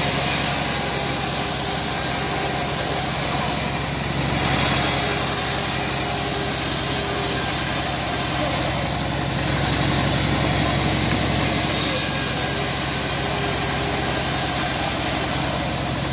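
Homemade bandsaw mill running with a steady drone while its band blade saws teak heartwood into beams.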